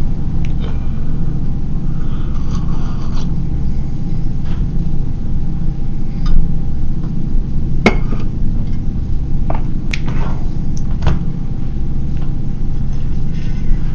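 Steady low rumble with a faint constant tone above it, and a handful of sharp clicks and clinks a little past the middle.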